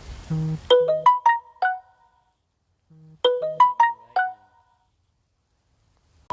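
A phone ringtone: a short melody of quick notes, each dying away fast, played about every three seconds. Steady rain is heard at first and cuts off abruptly less than a second in.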